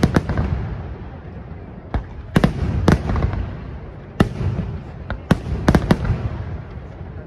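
Aerial fireworks shells bursting overhead: a dozen or so sharp bangs at irregular intervals, the loudest about two and a half and three seconds in, over a continuous low rumble of further bursts.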